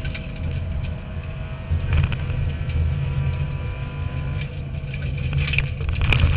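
Subaru Impreza N4 rally car's turbocharged flat-four engine running hard under load, heard from inside the stripped cabin, with knocks and rattles from the car's body throughout. The engine eases about a second in and builds again, and a cluster of sharp knocks comes near the end.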